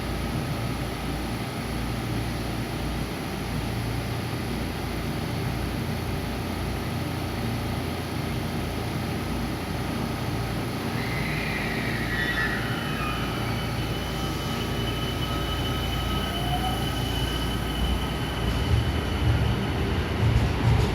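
Electric train running with a steady rumble and the whine of its motors, which glides down in pitch about halfway through and then rises again near the end as the sound grows louder.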